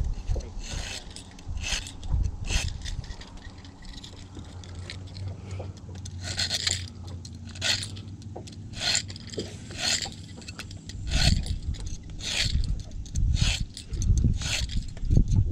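Short, repeated rasping scrapes, roughly one a second, from a hand tool drawn across the hook of a muskie jerk bait. A low steady hum runs underneath and drops away about eleven seconds in.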